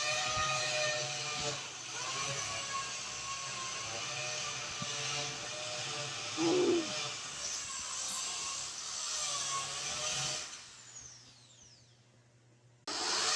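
A drill running with a high, wavering whine over a hiss, with a brief louder burst about six and a half seconds in. Near eleven seconds it winds down in a falling whine, and it starts up again just before the end.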